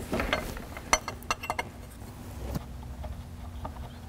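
Upper exhaust heat shield being handled and fitted over its mounting studs: a quick series of light metal clicks and taps in the first second and a half, a few more later, over a low steady hum.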